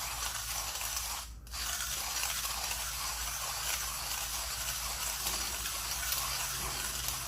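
Millwright hand grinder's burrs crushing coffee beans at a fine espresso setting as the handle is cranked: a steady gritty grinding hiss that breaks off briefly about a second and a half in, then carries on.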